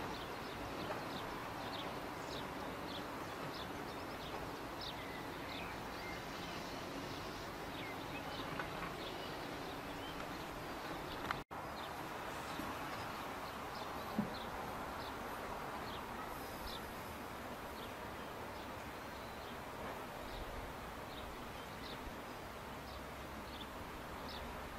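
Outdoor ambience: a steady background hiss with many short, high bird chirps scattered throughout. The sound drops out for an instant about halfway through.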